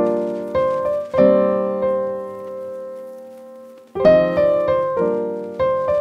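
Background piano music: struck notes and chords that ring and fade, with one chord left to die away in the middle before the notes pick up again about four seconds in.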